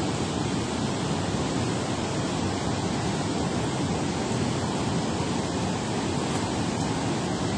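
Steady rush of water pouring through a dam spillway, an even, unbroken noise with no pauses.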